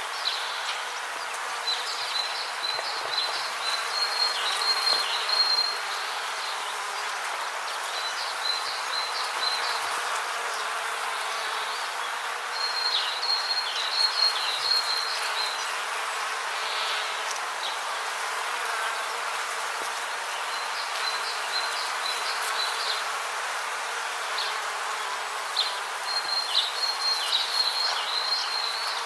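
Rainforest ambience: a steady hiss of insect chorus, with bouts of high, rapid chirping trills that come every several seconds and last two to four seconds each.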